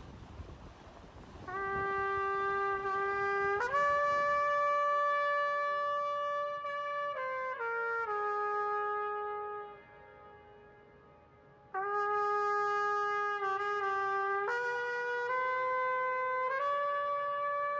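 Solo trumpet playing a slow melody of long held notes that step up and down in pitch. It comes in about a second and a half in, over wind noise, breaks off for a couple of seconds past the middle, then resumes.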